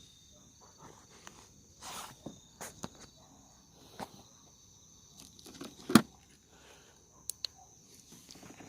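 Insects calling steadily, a high continuous chirring with a repeating pulsed trill, over scattered small clicks and knocks. The loudest of these is one sharp knock about six seconds in.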